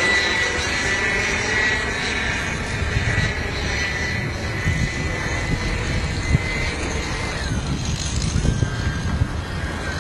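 Electric ducted fan of a radio-controlled F-15 model jet whining in flight, its pitch drifting slowly lower and then falling away about seven seconds in, over a low rumbling noise.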